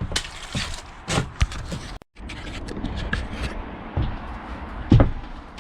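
Scattered knocks, clicks and scraping from hands, tools and a floorboard being handled while a hole is marked out on the board. There is a brief break about two seconds in, and the loudest knock comes near the end.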